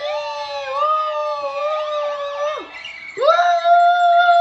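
A voice imitating a fire-truck siren: two long wails. Each swoops up, holds one pitch, then drops at the end; the second is higher and louder.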